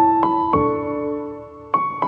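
Background piano music: a few soft notes struck and left to ring, with a new chord near the end.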